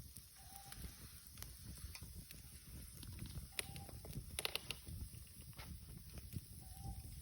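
Wood campfire burning, crackling with irregular sharp pops over a low steady rumble, with a quick cluster of pops about halfway through.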